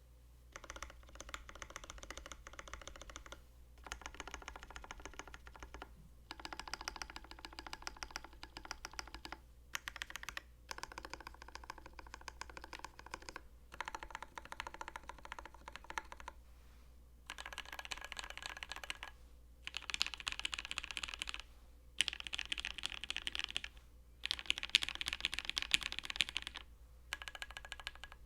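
Custom mechanical keyboard (Nunu by Tomu) with lubed Marshmallow linear switches, GMK keycaps and an FR4 half plate being typed on fast, in runs of a few seconds with brief pauses between them. The later runs are louder.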